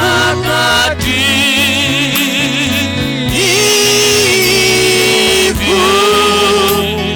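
Swahili gospel worship song: a singer holds long notes with a wavering vibrato over a steady, stepping bass line and keyboard backing.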